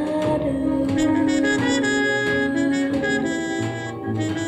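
Jazz film-score music: a saxophone plays a melody of long held notes over the band.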